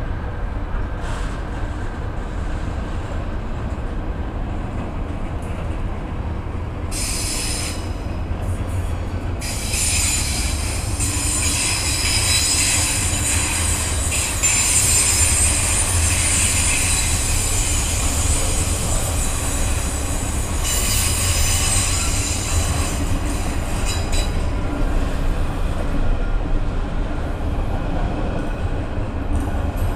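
Intermodal freight train's container wagons rolling past close by, a steady low rumble of wheels on rail. From about seven seconds in, a high-pitched squeal from the wagons joins, loudest through the middle and thinning out towards the end.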